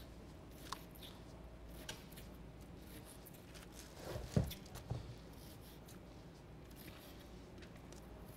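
Faint, scattered taps and clicks of food preparation at a kitchen counter, with a dull thump about four seconds in and a softer one just after.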